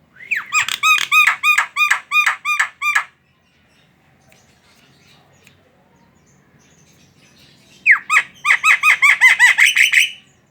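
Javan myna (jalak kebo) chattering in two bouts of quickly repeated squawking notes. The first bout lasts about three seconds at roughly four notes a second. After a pause, a second, slightly faster bout starts near the end.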